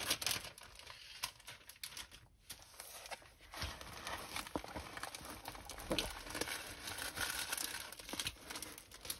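Plastic packaging of a diamond painting kit crinkling and rustling as it is handled, quietly and in fits and starts.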